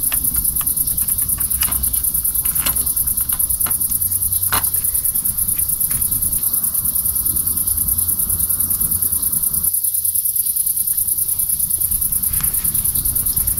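Crickets trilling without a break at a very high pitch, with a few sharp clicks scattered through and a low rumble underneath.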